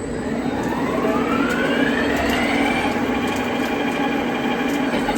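Fryer ET-50 CNC flat bed lathe's spindle drive speeding up in its second gear range: a whine that rises over the first two and a half seconds, then levels off into a steady run.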